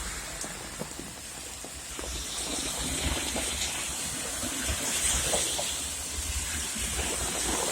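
Heavy rain falling steadily: a continuous hiss with scattered drops pattering, growing a little louder about two seconds in.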